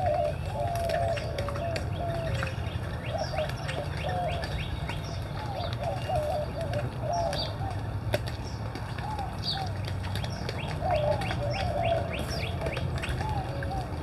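Several birds calling at once: many short, arched calls repeating in quick runs, with thin high chirps scattered among them, over a steady low rumble.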